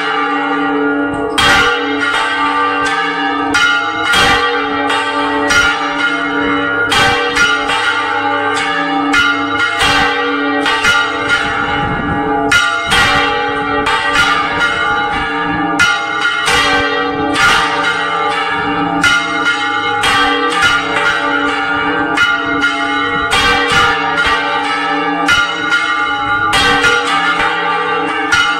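Spanish-style full-circle swinging of several church bells (volteo general). Large bronze bells on wooden counterweighted headstocks are swung right over by hand, and their clappers strike about once a second in an irregular, overlapping clanging over continuous ringing.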